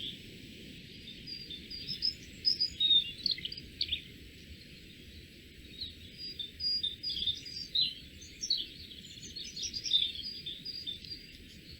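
Small songbirds chirping and singing, many short high notes in quick clusters, over a low steady background rumble.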